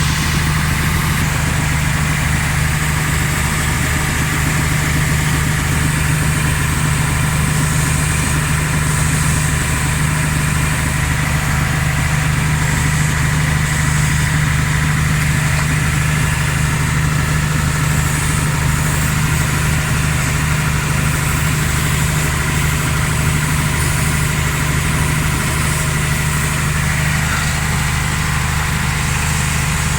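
IVECO truck's diesel engine idling steadily.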